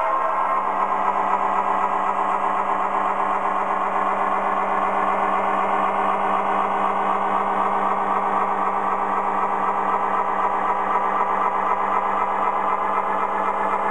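MTH Premier GP40 model locomotive's sound system playing a steady diesel engine drone as it runs, with the rattle of the freight cars rolling on the track. A horn blast cuts off in the first half second.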